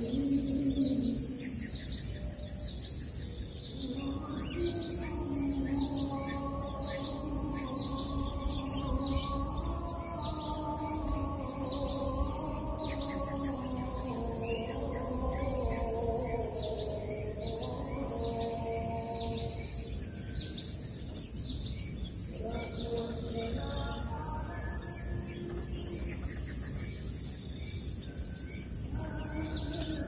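Birds chirping in many short repeated notes over a steady, high insect buzz, with low wavering sustained tones underneath for much of the time.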